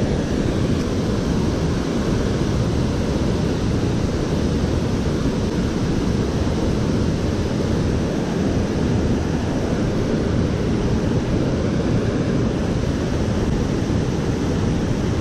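Steady roar of a large waterfall, a low, even rush of falling water with no let-up.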